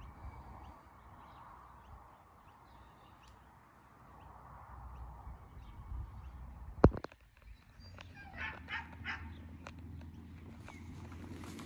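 A dog barking about three times in quick succession, shortly after a single sharp, loud click.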